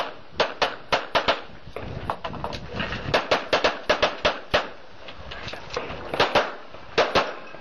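.40 S&W pistol firing rapidly in quick pairs and short strings, with pauses of about a second or more between groups of shots.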